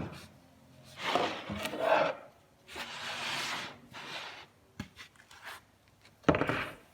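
Melamine-faced wooden cabinet panels being handled and rubbed together during glue-up, with two longer rubbing or scraping passes, a few light knocks, and a louder rub or knock near the end.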